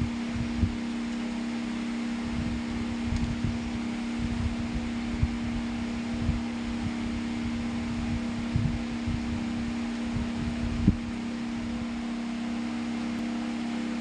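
Homemade table fan's 12V DC motor running at a steady speed: a constant hum with a steady rush of air. Irregular low thumps sound through it, one louder about eleven seconds in.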